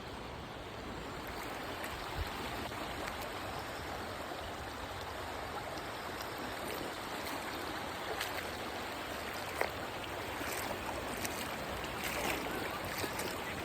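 Steady rush of flowing river water, with a few faint clicks and knocks scattered through.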